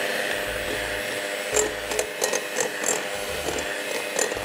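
Electric mixer running steadily, creaming butter and caster sugar for a cake batter, with a few light clicks now and then.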